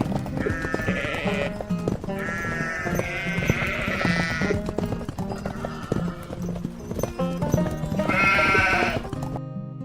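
Background music with a steady low line and many light clicks. Wavering high calls come three times: about a second in, for a couple of seconds around the middle, and near the end.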